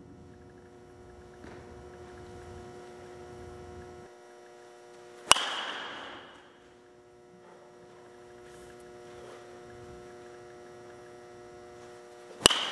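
Two sharp hits of a baseball bat on a pitched ball, about seven seconds apart, each with a brief ringing ping, over a steady electrical hum.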